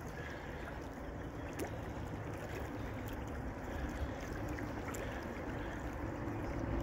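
River water lapping and trickling against an inflatable pontoon boat, over a steady low rumble, with a few faint clicks.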